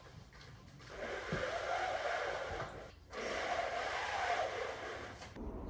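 A person breathing heavily: two long breaths of about two seconds each, one after the other.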